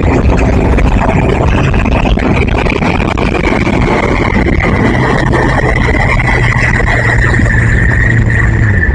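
A motor vehicle running along with dense wind and road noise, a steady high whine above it. Near the end the engine note drops as it eases off.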